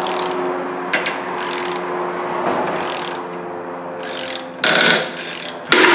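Ratchet wrench clicking in repeated strokes as a bolt is screwed into the rear brake rotor's jacking hole, forcing the rotor, stuck fast on the hub, off. There are two louder bursts near the end.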